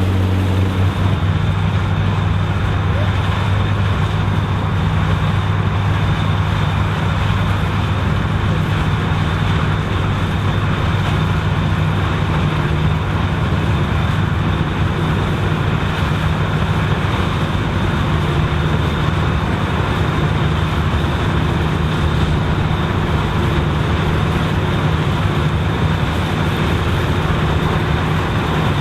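Vintage combine harvester running while harvesting corn: its engine and threshing machinery make a loud, steady drone. The low engine note shifts about a second in.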